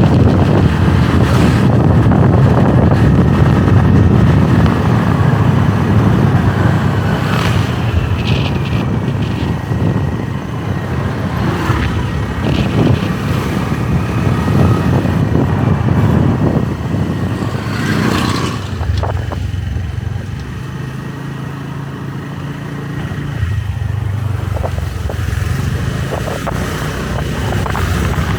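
Motorbike engine and road noise while riding, steady and loud; it eases off for a few seconds about two-thirds of the way through, then picks up again.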